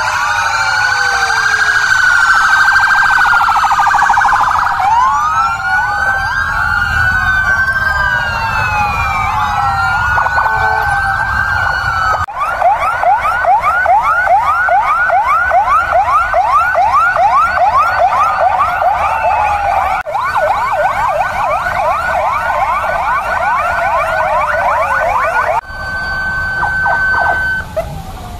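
Many police vehicle sirens sounding at once as the convoy sets off: overlapping slow wailing sweeps, switching about halfway in to a fast rapid yelp. Near the end most of them cut off and a single steady tone holds briefly.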